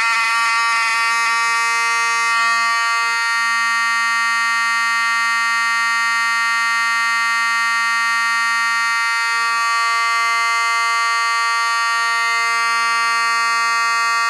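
Wheelock 34T-24 fire alarm horn sounding continuously, a steady, loud, unbroken buzz. With no strobe wired in series, the buzz runs clean and never skips.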